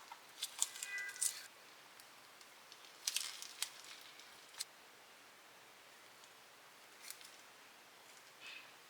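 Light kitchen handling sounds from food preparation: a few quick crinkly rustles and clicks near the start and again about three seconds in, then occasional faint ticks.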